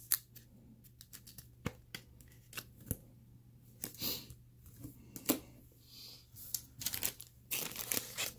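Trading cards in clear plastic toploaders and sleeves being handled: scattered sharp plastic clicks and light rustling, getting busier near the end.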